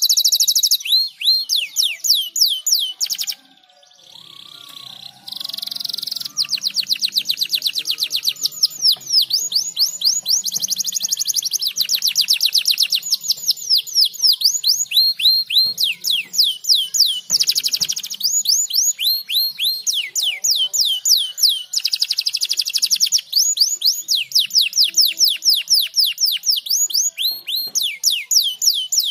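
Domestic canary singing: long fast trills of rapidly repeated high, falling notes, with a short break about four seconds in.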